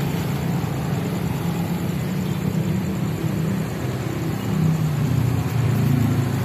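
Road traffic crossing close by: the engines of a small truck and many motorbikes run steadily as they pass, with one engine shifting in pitch about two-thirds of the way in.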